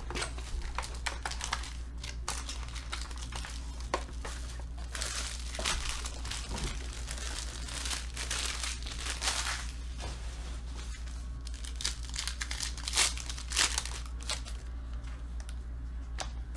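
Crinkling, rustling and tearing of a 2019 Panini XR football card box and its foil pack wrapper as they are opened by hand, in irregular bursts, with cards being handled.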